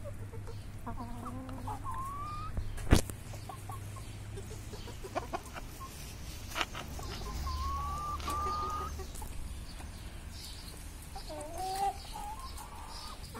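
Domestic hens clucking, with a few drawn-out calls, some rising in pitch. A single sharp knock comes about three seconds in.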